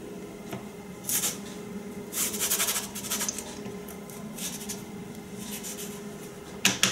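Plastic cookie cutter pressed into rolled sugar cookie dough and twisted against a floured wooden board: short, scratchy rubbing scrapes every second or so, with a sharp click near the end.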